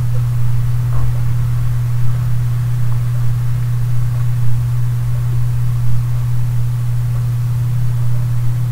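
A steady low electrical hum with an even hiss under it: the recording's background noise.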